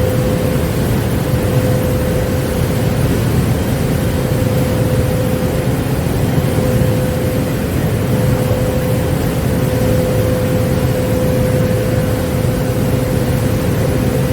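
Kärcher IVM 40/12 H Z22 industrial vacuum cleaner running steadily while sucking up debris: a constant rushing of air with a steady whine held on one pitch.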